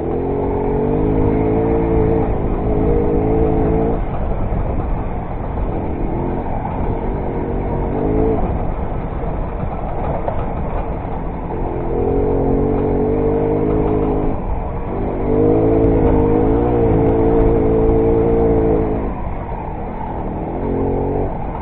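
Derbi Variant moped's small two-stroke engine running under throttle on a rough trail, its pitch rising and falling in several stretches of revving, over a constant rumble.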